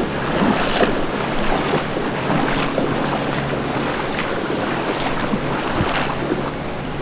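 Forest stream rushing over rocks, with short splashes every second or so as someone wades through the water.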